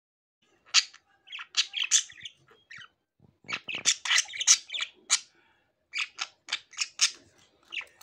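Pet budgerigars chirping: a quick, irregular run of short, sharp chirps and squawks, with a couple of brief pauses.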